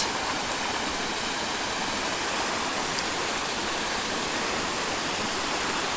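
Small mountain stream cascading over rocks into a pool: a steady rushing of water.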